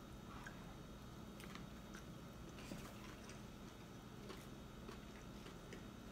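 Chewing a shrimp po' boy sandwich with the mouth closed: a bite into the bread at the start, then faint scattered clicks of chewing over a low steady hum.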